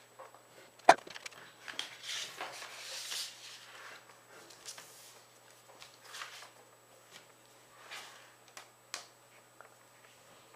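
A sheet of paper rustling and crinkling as it is folded and creased by hand, with a sharp tap about a second in and a longer rustle after it. Scattered soft rustles and small clicks follow as the folds are smoothed down.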